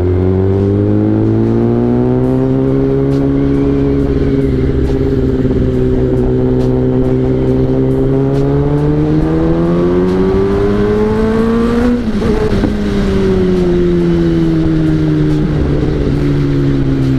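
Kawasaki ZX-10R's 1000 cc inline-four engine running under way. Its note climbs slowly, then rises more steeply to a peak about twelve seconds in, breaks there and falls away gradually.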